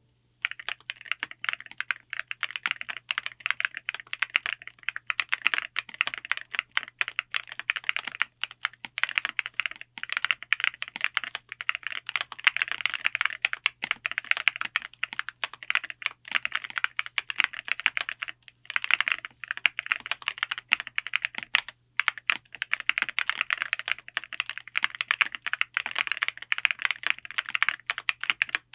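Fast, continuous typing on a mechanical keyboard fitted with full metal keycaps plated in black titanium, on a gasket-mounted TKD Cycle8 board, with a couple of short pauses.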